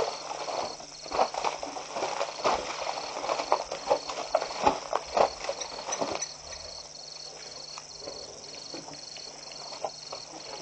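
Elephants moving in the mud of a waterhole bank: a dense run of irregular short knocks and thuds for about six seconds, then only scattered ones. A high chirp pulses evenly about three times a second throughout.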